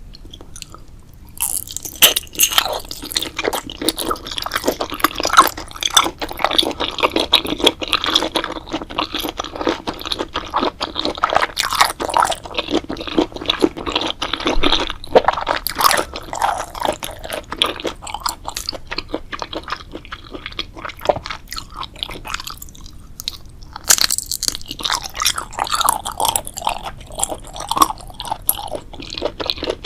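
Close-miked crunching and chewing of crisp food, a dense run of crackling bites and chews that starts about a second and a half in. After a short pause about three quarters of the way through, a fresh crunchy bite starts the chewing again.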